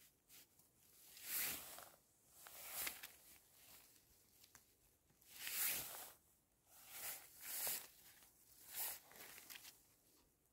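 Faint, short rustling and tearing sounds, about eight separate bursts: hands pulling wild mushrooms up out of the forest-floor litter.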